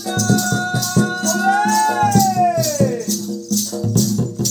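Odia Danda Jatra folk music: a steady jingling percussion beat, with a long held note that rises and then glides down, ending about three seconds in.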